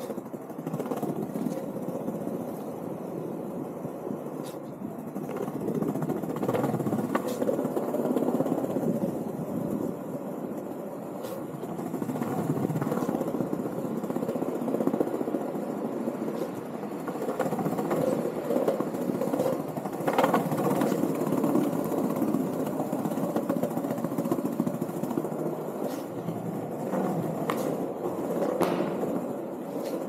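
Landyachtz Dinghy cruiser skateboard's wheels rolling over paving stones: a steady rumble that swells and eases as the ride goes on, with a few sharp clicks along the way.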